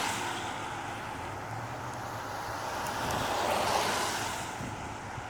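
Wind rushing across the microphone, swelling to a peak about three to four seconds in and then easing.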